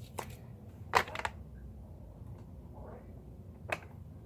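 A few sharp clicks and knocks of objects being handled, the loudest a quick double knock about a second in and another near the end, over a low steady background rumble.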